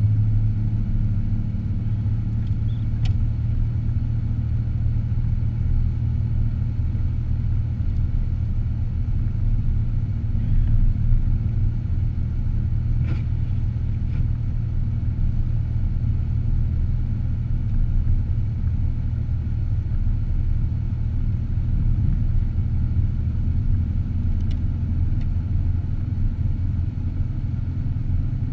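Car driving: a steady low rumble of engine and road noise, with a few faint ticks.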